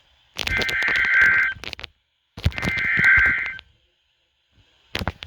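Two bursts of an Emergency Alert System SAME header, the harsh two-tone digital data screech that opens a new alert. Each burst lasts about a second, with a second of silence between them, and a few short clicks come near the end. The header announces a new alert, here a severe thunderstorm warning.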